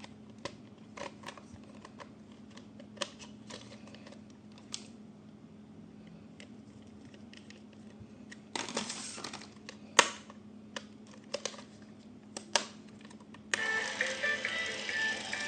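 Irregular sharp clicks and short rustles of plastic toy parts and packaging being handled, with a longer rustle and one loud click around the middle, over a steady low hum. A couple of seconds before the end, music starts abruptly and is louder.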